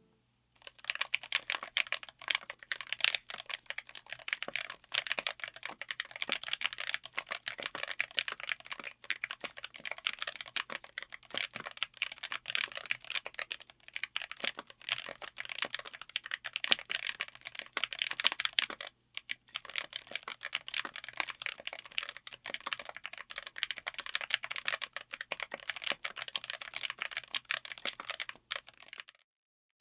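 Fast continuous typing on a mechanical keyboard with Akko Dracula linear switches, mounted on an FR4 plate in an aluminium case. It pauses briefly about two-thirds of the way through and stops just before the end.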